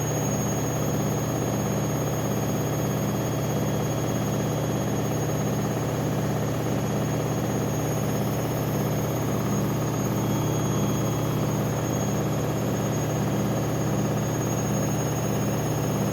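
Washing machine running its spin cycle: a steady hum from the spinning drum that pulses about twice a second, with thin high-pitched tones held above it.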